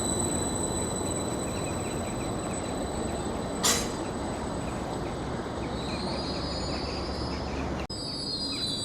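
Train running through the station, its wheels squealing on the rails with thin steady high tones and gliding squeals in the second half. A brief sharp noise comes about three and a half seconds in, and there is a sudden break near the end.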